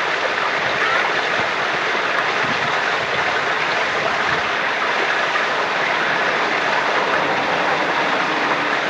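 Spring water running steadily at a holy well: an even rushing of flowing water, unbroken and unchanging.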